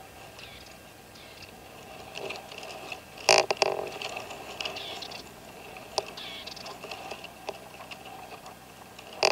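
Red-legged partridges calling softly back and forth between a caged decoy and a wild bird, with scattered light clicks and one sharp knock about three seconds in.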